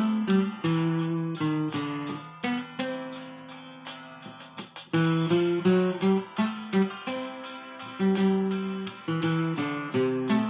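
Acoustic guitar playing a slow hymn melody, single plucked notes ringing over bass notes, with a quieter passage about halfway through.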